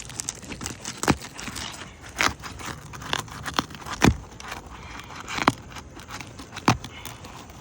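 Scraping and crackling of a tool working under asphalt roof shingles to free their nails, with about five sharp clicks or knocks spread through it; the loudest is near the middle.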